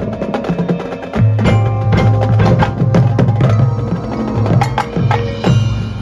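Marching band playing its field show: a percussion-heavy passage of rapid, sharp strikes over low sustained notes.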